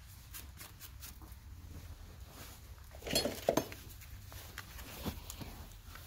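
Handling sounds of hoof trimming: small clicks and scuffs as a horse's hoof is lifted and a steel hoof rasp is set against it, with two louder scuffs about three seconds in.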